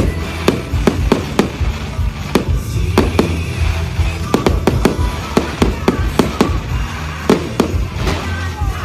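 Aerial fireworks going off in quick succession, with many sharp bangs and crackles, several a second. Music plays steadily underneath.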